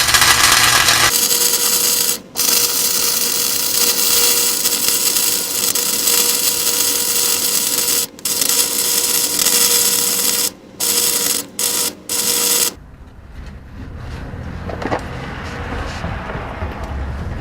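Harbor Freight flux-core wire-feed welder arc crackling and hissing as it welds a hanger bracket onto an exhaust pipe, in long runs broken by several short pauses. The welding stops about thirteen seconds in.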